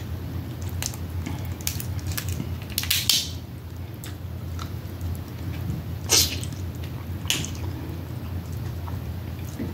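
Close-miked eating sounds from eating crab: wet mouth smacking and sucking with small clicks, and short loud noisy bursts about three seconds in and about six seconds in, over a low steady hum.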